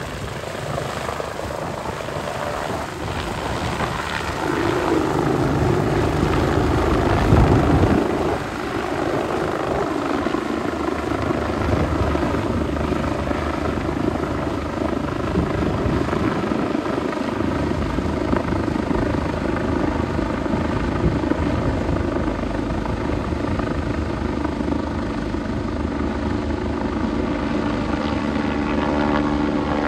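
Airbus BK 117 twin-engine air-ambulance helicopter lifting off and climbing away overhead, with rotor and turbine noise throughout. It is loudest about seven to eight seconds in, then holds fairly steady.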